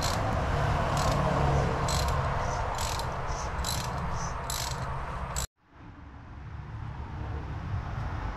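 Ratchet clicking in short runs, about one every half second, as it is swung back and forth on an oil filter wrench to turn the oil filter housing cap of a BMW E46. The clicking cuts off abruptly about five and a half seconds in, leaving a quieter steady background.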